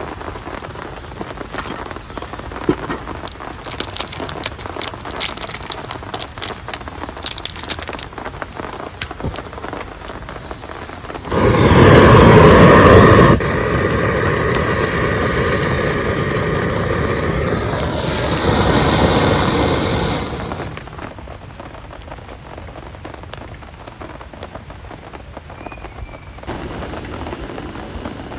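Rain falling steadily on a tent and the ground around it, with sharp drop ticks in the first several seconds. About eleven seconds in, a much louder rush of noise starts suddenly. It is loudest for about two seconds, stays loud until about twenty seconds in, then falls back to the steady rain.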